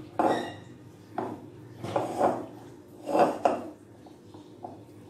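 Hands mixing and squeezing wet, lumpy bread dough in a glass bowl: squishing of the dough with knocks of hand and dough against the glass, in several irregular bursts about a second apart.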